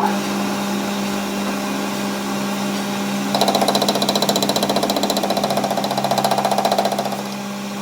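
A workshop machine hums steadily. About three seconds in, a fast, even mechanical rattle of roughly a dozen beats a second joins it, and it stops a little before the end.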